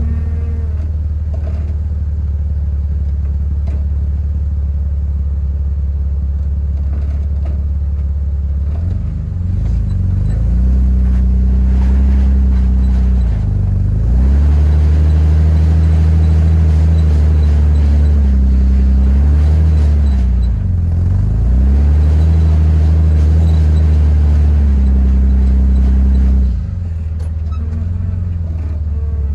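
Jeep TJ engine idling, then revving up and down repeatedly under load for about seventeen seconds as the Jeep crawls on a steep rock ledge, then settling back to idle near the end.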